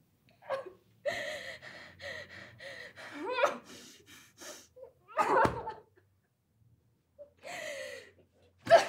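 A person breathing in ragged gasps, with short whimpering sounds in between, then a pause of about a second and a half.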